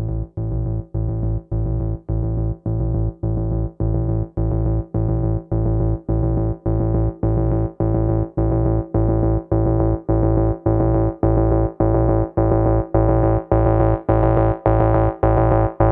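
Electronic dance track intro: a synthesizer chord pulsing in a steady rhythm about twice a second over a deep bass tone, its sound gradually growing brighter.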